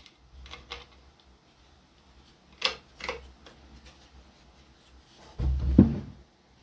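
Light clicks and knocks as a wooden jig is handled, two sharper ones a few seconds in. Near the end comes a louder, heavier thud as a board is moved against the workbench.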